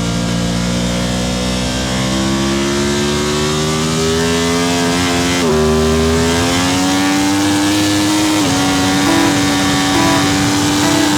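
Racing motorcycle engine accelerating hard, its pitch rising steadily; about five and a half seconds in it drops at a gear change and climbs again, and after another drop about eight and a half seconds in it runs at a nearly steady pitch.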